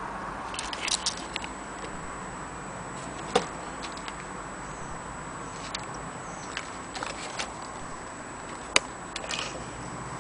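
Small sharp clicks and light taps, a handful scattered over a steady hiss, as a vintage folding film camera is handled, its metal parts clicking. Two clicks stand out, about a third of the way in and near the end.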